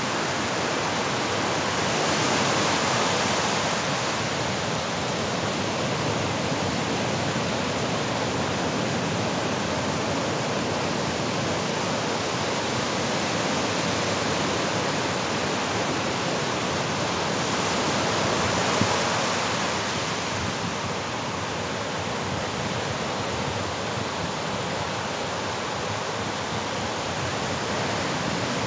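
Ocean surf: small waves breaking and washing into the shallows, a steady rush that swells a few seconds in and again about two-thirds of the way through.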